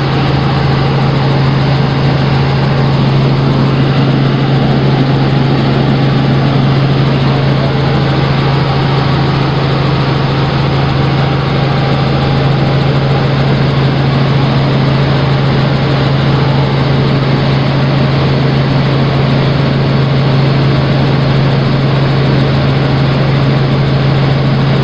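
Cabin noise of a small helicopter in flight: a loud, steady low hum from the engine and rotor with an even rush of air over it, heard from inside the cabin.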